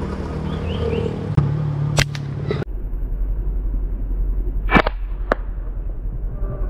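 Slingshot shots: a sharp crack of the rubber bands releasing about two seconds in, then two more cracks about half a second apart later on, the first of them ringing briefly. A steady low hum runs underneath.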